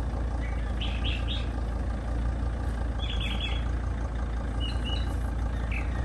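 T1N Sprinter van's diesel engine idling with a steady low rumble. Short bird chirps come through about one, three and five seconds in.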